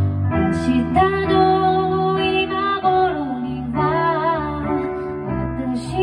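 A woman singing a slow ballad with digital piano accompaniment; the voice comes in about half a second in, with vibrato on the held notes.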